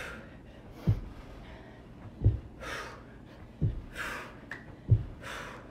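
Feet landing from side-to-side squat hops on a carpeted floor: four dull thuds a little over a second apart, each followed by a hard, breathy exhale.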